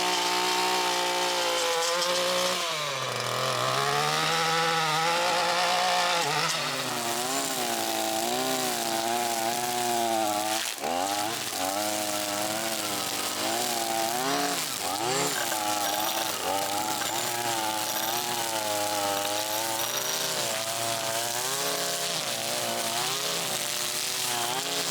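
Gas-powered chainsaw cutting tree limbs, its engine holding a steady high speed at first, then dipping and rising in pitch again and again as the cuts load it.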